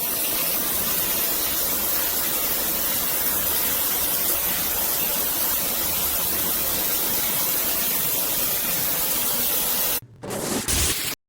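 Water spraying steadily from a large stainless-steel rain shower head, a loud even hiss. About ten seconds in it dips briefly, gives a short louder rush, then cuts off abruptly.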